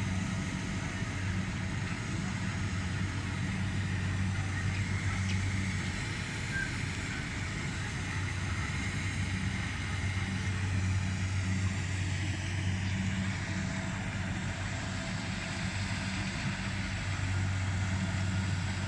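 Rice combine harvester's engine running steadily as it cuts, a low, even drone with a faint, constant mechanical clatter.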